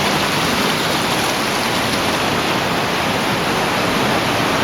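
Underground cave stream in near flood, rushing water making a loud, steady noise.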